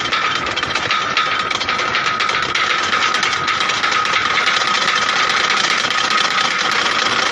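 Pole hole digging machine's engine running steadily, with a fast, even clatter and a steady high whine over it.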